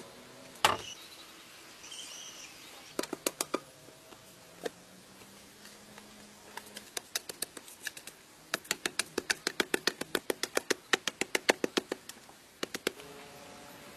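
Hoe blade chopping into dry, stony soil in quick runs of short sharp strikes, about six a second, with one heavier thud just under a second in.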